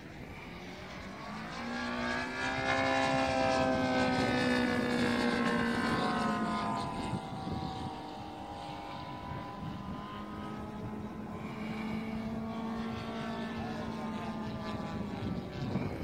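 Radio-controlled scale model Lysander airplane flying past overhead. Its motor note grows louder about two seconds in and drops in pitch as the plane goes by, then drones on more faintly.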